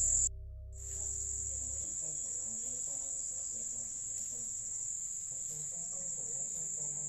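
Crickets trilling in one steady, high, continuous tone, with a brief total cut-out of the sound about half a second in.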